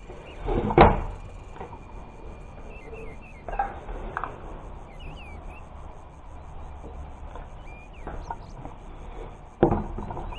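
Knocks and rubbing as a caulking gun loaded with a silicone cartridge is handled on a tabletop: a sharp knock about a second in and a louder clatter near the end as it is set back down, with a few lighter knocks in between.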